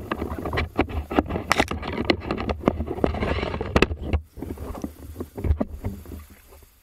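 Water sloshing and splashing around a spearfisher moving through shallow water, with many sharp clicks, knocks and rustles as grass and leaves brush past; the sounds die away near the end.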